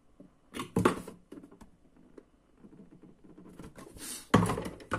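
Cardboard toy packaging being handled by hand: rustling with two louder knocks, one about a second in and one near the end.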